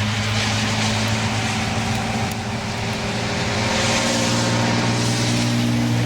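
Federal Signal STH-10 mechanical fire siren sounding the attack signal. Its pitch rises a little partway through, and its loudness swells and fades as the rotating horn turns.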